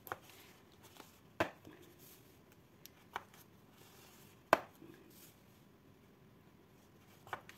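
Card and scoring tool handled on a scoring board: a few scattered sharp taps and clicks, the loudest about halfway through.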